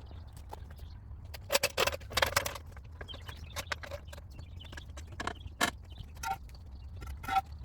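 Metal parts and hand tools being handled during work on a car's wheel: scattered clicks and knocks, a scrape about two seconds in, and two ringing metallic clinks near the end, over a steady low hum.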